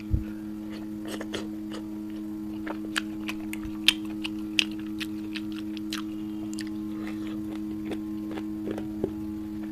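Close-up eating sounds: scattered wet lip smacks and chewing clicks from a person eating chicken in curry gravy with his fingers. A steady low hum runs underneath.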